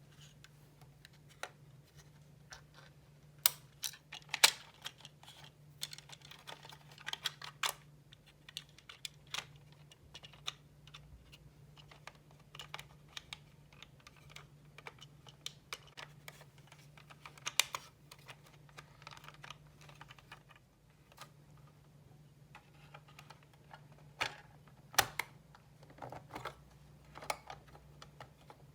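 Irregular small clicks, taps and short scrapes of hands and tools handling a model car's small parts, some clicks sharper and louder than others, over a faint steady low hum.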